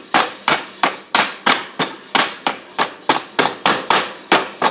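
Ice being struck hard over and over: sharp, loud knocks about three a second, which stop right at the end.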